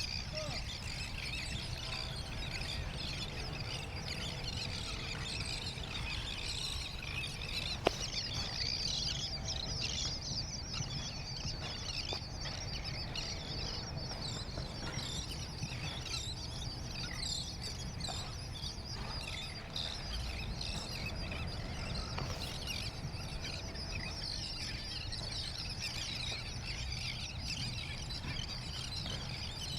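Many small birds chirping continuously, over a steady low rumble. A single sharp click comes about eight seconds in.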